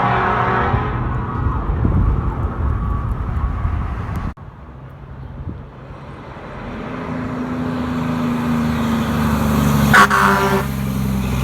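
Vehicle air horns. One horn blast trails off about a second in over the heavy rumble of a passing vehicle. After a cut, an engine builds up and a short, loud air horn blast sounds about ten seconds in.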